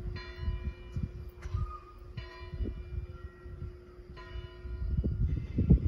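A church bell tolling, one slow strike about every two seconds, each note ringing on and fading, with a fainter stroke near the end. A low, uneven rumbling noise runs underneath and grows louder near the end.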